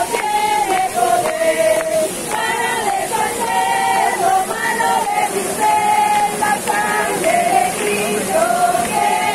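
A group of men and women singing a melody together in held, sliding notes. Under the singing runs the steady rush of a waterfall.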